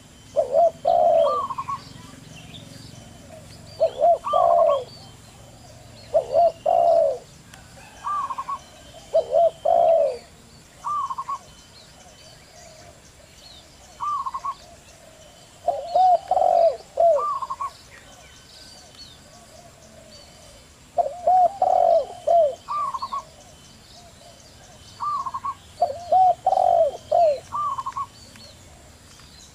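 Zebra doves and spotted doves cooing in short phrases of quick, rolling coos every few seconds, some phrases lower and some higher. Faint high chirps of small birds sound behind them.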